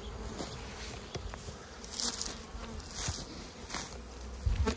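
Honeybees buzzing steadily around open hives, with a few brief rustles and a low thump near the end.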